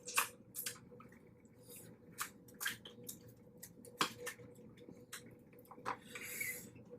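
Boiled blue crab being broken apart and eaten: scattered sharp cracks and clicks of shell with wet squishing and dripping, and a longer wet smacking hiss about six seconds in.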